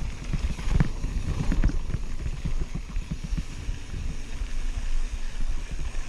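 Mountain bike riding fast down a rough dirt singletrack: a steady low rumble with many small knocks and rattles from the bike going over bumps, busiest between about one and two seconds in.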